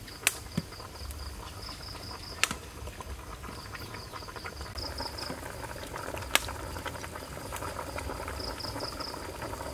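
Crickets chirping steadily in pulses, with a metal ladle clinking sharply three times against the pot and ceramic bowl as curry is ladled out. From about halfway the soft bubbling of the simmering curry pot grows more audible.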